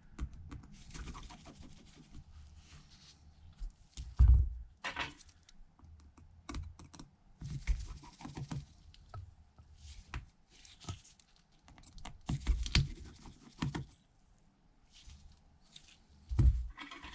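Light, irregular clicks, taps and rustles of small tools and phone parts being handled during an iPhone screen replacement, with a louder knock about four seconds in and a couple more near the end.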